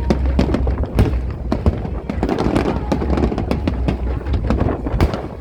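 Fireworks display: a dense, irregular stream of bangs and crackles, many per second, over a steady low rumble, with one of the strongest bursts near the end.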